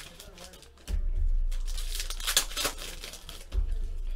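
Foil trading-card pack wrappers being torn open and crinkled by hand. The crinkling comes in quick bursts from about a second in.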